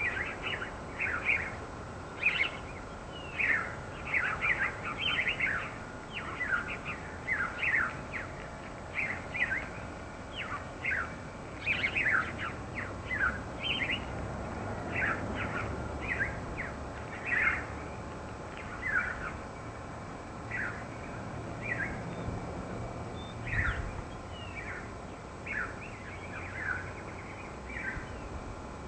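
Birds chirping over and over: short, sharp calls that sweep down in pitch, one or two a second, thinning out in the second half, over a low rumble of breeze.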